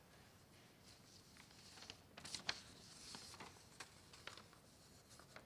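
Near silence, with faint rustling and a few soft clicks in the middle as sheets of paper are handled at a lectern microphone.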